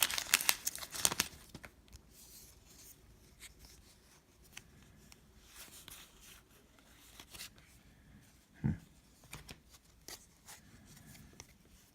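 Plastic wrapper of a trading-card pack crinkling and tearing open for about the first second and a half, then faint rustling and ticks of cards being handled, with one short thud later on.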